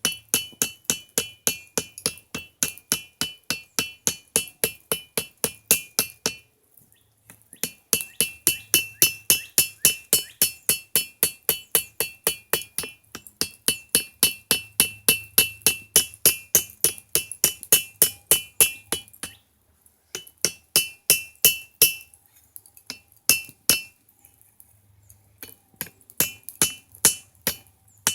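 Hand hammer striking heated steel from an old garden hoe on an anvil, about three blows a second, each blow leaving a bright ring. The hammering stops briefly about seven seconds in, again near twenty seconds, and for about two seconds a little later.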